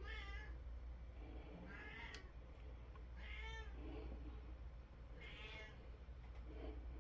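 A domestic cat meowing four times, each a short call that rises and falls in pitch, about one every second and a half to two seconds.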